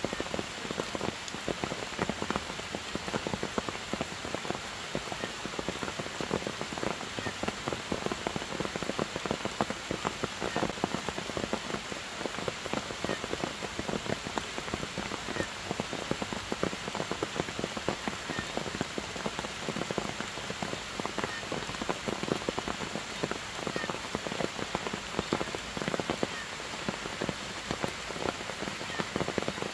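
Steady rain falling on forest foliage and ground, with a dense crackle of individual drops striking close by.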